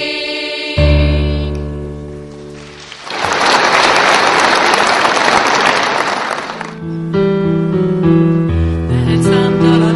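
Accompaniment music holding and fading out on a song's final chord, then audience applause for about three and a half seconds. As the clapping dies down, a keyboard accompaniment starts the next song's introduction.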